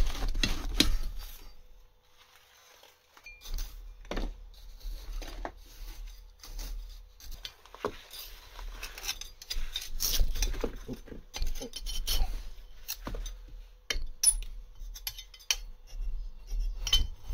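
Metal scraper digging and prying through packed moulding sand around freshly poured metal castings, with irregular scrapes and clinks as the blade strikes the castings and the metal flask frame and lumps of sand break away.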